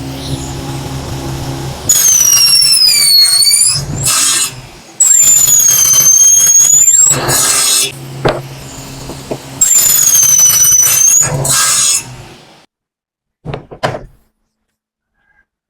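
Power saw running and cutting three times. Each cut lasts two to three seconds and gives a loud, high-pitched squealing whine that wavers in pitch, with a short rushing noise between cuts. The saw stops about twelve and a half seconds in, followed by a brief clatter.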